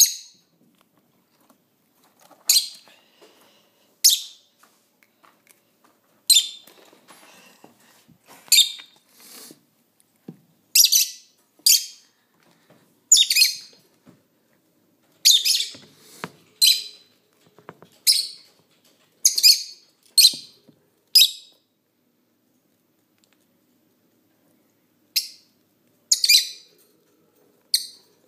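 Pet rat biting into a piece of crisp green bell pepper: short, sharp crunches every second or two, with a pause of a few seconds shortly before the end.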